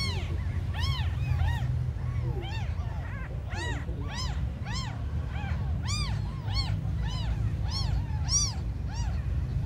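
Newborn kittens mewing over and over: short high calls that rise and fall in pitch, about two a second, from several kittens. A steady low hum runs underneath.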